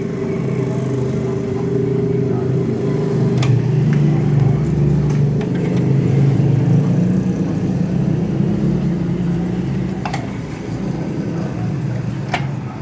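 Motor vehicle engine running steadily, rising a little in pitch and level in the middle, with a few sharp clicks over it.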